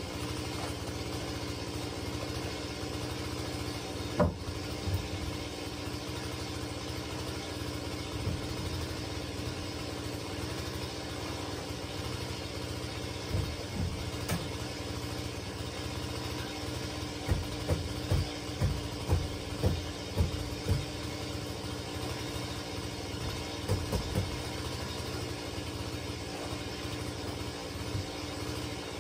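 Wooden knocks and thumps as rough-sawn floor planks are handled and set down on log joists: a sharp one about four seconds in and a quick series about two-thirds of the way through. Under them runs a steady motor-like hum.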